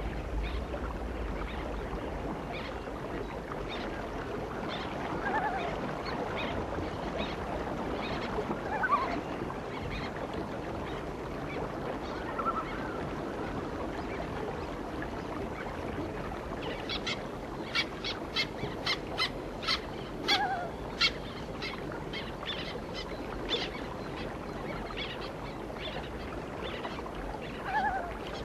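Fillet knife cutting through a northern pike fillet on a wooden board, with a run of sharp clicks and ticks a little past the middle as the blade works along the Y-bones. A few short bird calls over a steady hiss.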